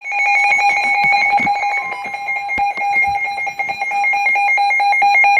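Emergency alert attention tone announcing a flash flood warning: a loud, steady electronic tone with a higher tone flipping rapidly between two pitches above it, over rapid regular ticking.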